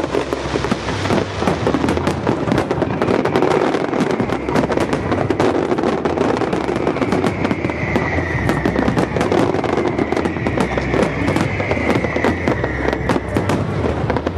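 A dense barrage of aerial fireworks shells bursting, with rapid overlapping bangs and crackles throughout.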